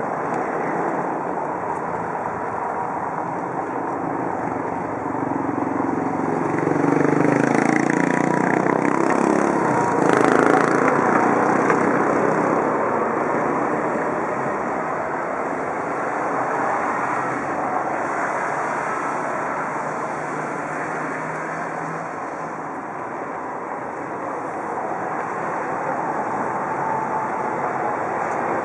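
Steady outdoor road-traffic noise, with one vehicle passing closer and louder between about six and twelve seconds in.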